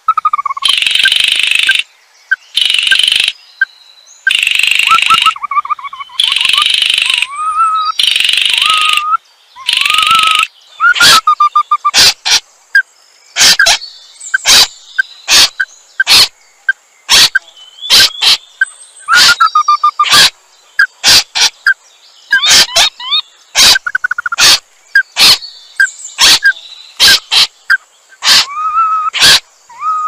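Dry rasping calls, each under a second long and repeated about once a second, for the first ten seconds. They give way to a fast, irregular series of sharp clicks over a thin, steady high whine.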